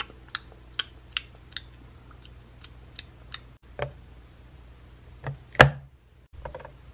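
Light plastic clicks and taps from toy feeding: a pink plastic fork and toy food against a hard plastic doll plate. About two or three quick clicks a second at first, then a few louder separate taps, the loudest a little past halfway.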